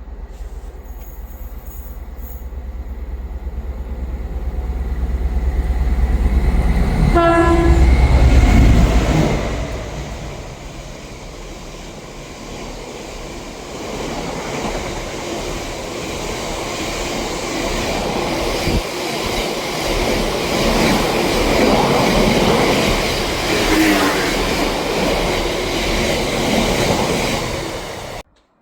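A train sounds a short horn blast and passes close by, with a heavy low rumble at its loudest just after the horn. Wheel and rail noise then builds again and runs on until it cuts off suddenly near the end.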